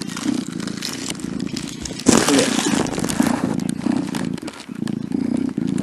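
Kitten purring close to the microphone, a steady low rumble, with crackly rustling over it that is loudest about two seconds in.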